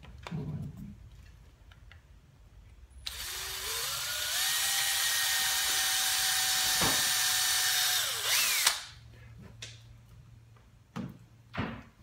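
Cordless drill with a 2 mm bit boring a hole through the wooden side bar of a beehive frame. About three seconds in, the motor whine rises in steps as it speeds up, runs steady for about four seconds, then drops and stops. A few light knocks from handling the frame follow near the end.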